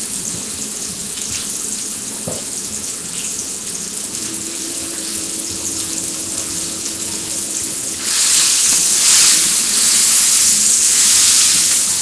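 Hot dogs frying in a pan, a steady sizzling hiss that gets louder about eight seconds in.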